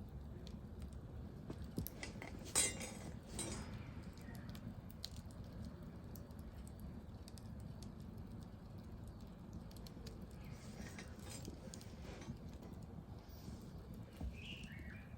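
Wood fire crackling in a fireplace: a steady low noise from the flames with scattered sharp pops and clicks, and a louder cluster of crackles about two and a half seconds in.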